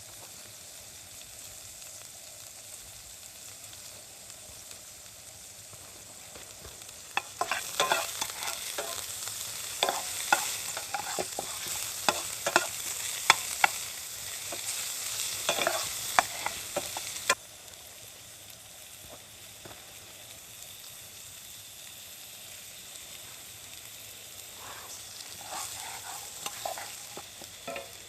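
Food frying in a hot pan over a campfire: a steady sizzle swells about a quarter of the way in into loud spitting and crackling with sharp pops, then drops back suddenly to a quieter sizzle, with a few more pops near the end.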